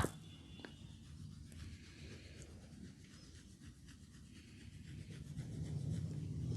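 Hands rubbing and kneading a head in a barber's head massage, growing louder near the end. A sharp crack comes right at the start and a fainter one follows under a second later.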